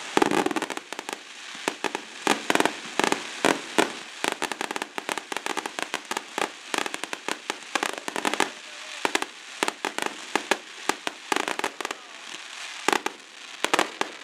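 Aerial fireworks display: a rapid, irregular run of bangs and pops from shells bursting overhead, several a second, thinning briefly before a thicker flurry near the end.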